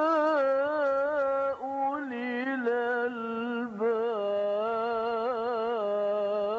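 Unaccompanied solo voice singing a slow, ornamented melody in long held notes that waver in pitch, stepping down about two seconds in and settling on a long low held note.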